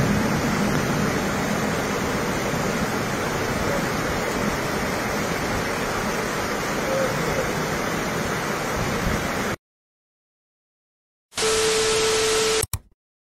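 Steady rushing noise of heavy rain and floodwater, cutting off suddenly about nine and a half seconds in. After a short silence, a burst of TV static with a steady beep tone lasts about a second near the end.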